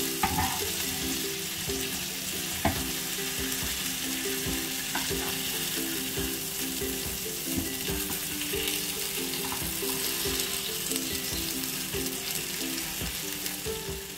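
Pomfret fish shallow-frying in hot oil in a pan, a steady sizzle, with a few light clicks of a spatula against the pan as the fish are turned. Quiet background music plays underneath.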